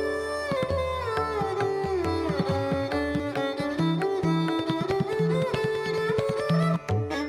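Instrumental background music: a gliding string melody over low, repeated drum notes.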